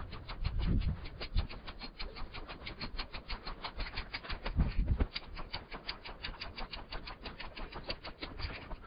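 Rapid, steady ticking, about seven or eight sharp ticks a second, with a few low thumps about a second in and near five seconds in.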